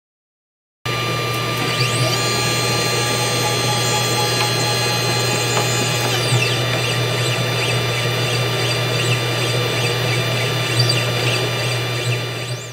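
CNC 3018 Pro laser engraver running: a steady machine hum and whine from its motors and laser module, with a few whines that rise and fall in pitch as the stepper motors move the head. It starts abruptly about a second in.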